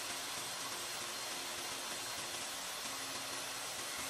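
Table saw running steadily while a wooden board is fed along the fence over the blade, cutting a shallow groove down the middle of its edge.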